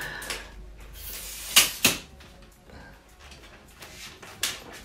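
Clicks and knocks from a tall metal camera tripod being handled and adjusted: two sharp clacks close together between one and two seconds in, and another near the end, over light handling rustle.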